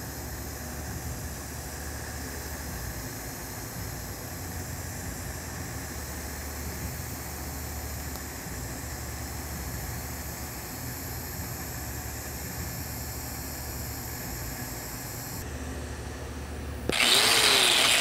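DC TIG welding arc on carbon steel pipe at 120 amps: a steady low buzz with a faint hiss. About a second before the end an angle grinder starts loudly on the steel fitting, its whine dipping and rising as it is pressed to the metal.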